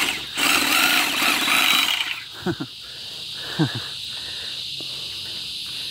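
Cordless reciprocating saw cutting through sago palm frond bases, stopping about two seconds in. After it stops, cicadas keep up a steady high buzz, broken twice by a short falling whir.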